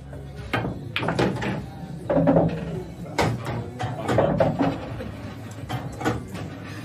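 An eight-ball pool shot: the cue tip clicks on the cue ball about half a second in, then the balls click against each other and knock off the cushions a number of times as the cue ball runs across the table. Two louder, longer sounds rise above the clicks about two and four seconds in.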